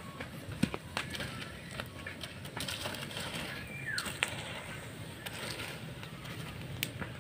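Wood fire under a cooking wok crackling with scattered sharp pops, while a long piece of firewood is pushed and scraped into the embers.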